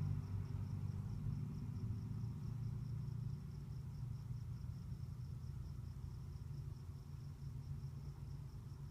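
Crickets chirping faintly and steadily, about five chirps a second, over a low steady rumble.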